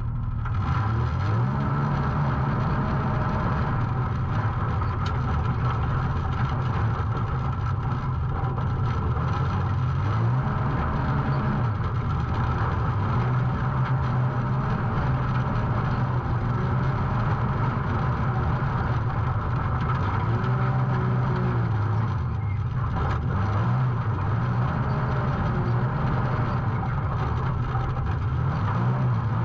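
Can-Am Maverick X3 side-by-side's turbocharged three-cylinder engine running continuously under throttle, its revs wavering up and down.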